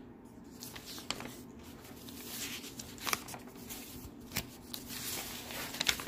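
A few sharp, light clicks and handling noises about a second apart, over a steady low hum.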